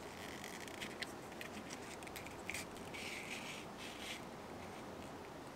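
Hand-stitching leather: a sail needle pushed through the leather and tarred hemp thread drawn through the stitch holes, giving a run of small clicks and short scratchy rasps, the longest just under a second long about three seconds in. The stitching sounds stop a little past four seconds.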